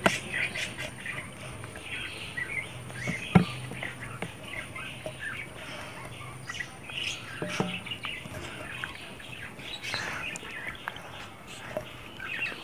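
Small birds chirping on and off, with a single sharp click about a third of the way in and a softer knock a few seconds later.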